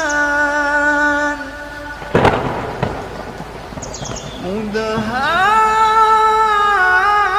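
A sharp thunderclap about two seconds in, dying away over the next second, from a thunder sound effect. It sounds over a man's long, held melodic recitation notes, which glide upward around five seconds in.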